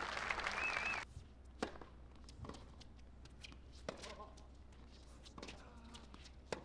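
Crowd applause with a voice over it, cut off abruptly about a second in. Then a tennis rally on a hard court: sharp pops of racket strings striking the ball and the ball bouncing, about one every second or so.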